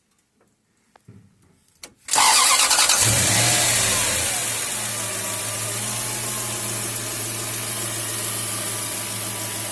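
A 2000 Toyota Tundra's 4.7-litre V8 starts about two seconds in, flares up briefly, then settles into a steady idle. The engine has a vacuum leak that sets the lean code P0171.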